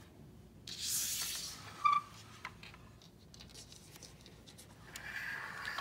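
Soft handling noises from plastic toys being moved about, including a toy bus slid across a play mat. A brief brushing hiss comes about a second in, a short high squeak near two seconds, light clicks, and a soft rustle near the end.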